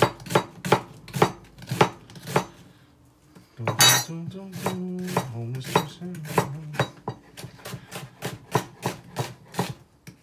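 Chef's knife slicing through an onion on a plastic cutting board, about three cuts a second. The cutting pauses for a few seconds in the middle, where a low droning note is heard, then resumes.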